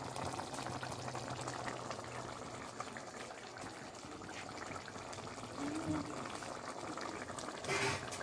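Thick chicken curry gravy bubbling at a simmer in an iron kadai: a steady, dense crackle of popping bubbles, with a brief louder noise near the end.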